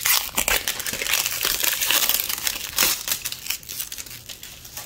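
Stiff paper wrapping being peeled and torn off an L.O.L. Surprise Fashion Show ball, a dense irregular crinkling and crackling that thins out near the end. The paper is stubborn and clings to the ball.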